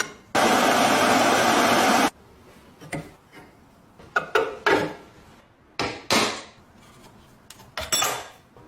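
Workshop tool sounds while restoring a rusty metal lock. A loud, steady rushing noise runs for about two seconds and stops abruptly. Then come about half a dozen separate knocks, clinks and scrapes of metal tools and parts.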